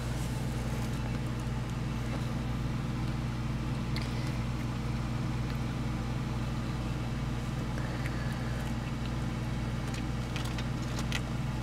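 Himalayan mother cat purring, a low, steady, continuous purr while her kittens nurse. A few faint soft ticks sound now and then.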